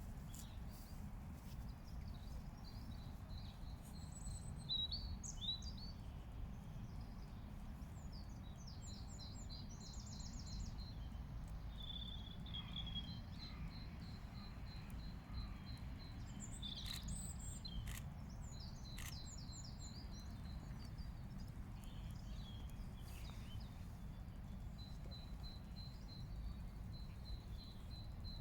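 Faint birdsong from small birds: scattered chirps, short trills and runs of repeated high notes, over a steady low rumble of background noise.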